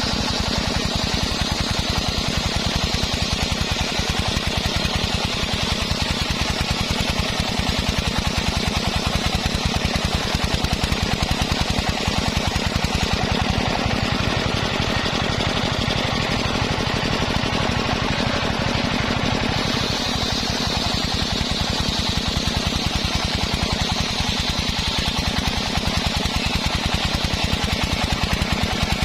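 Engine-driven mobile circular saw rig running steadily with a fast, even chugging from its engine, while the saw blade cuts sea hibiscus (waru) wood with a high whine that swells and fades.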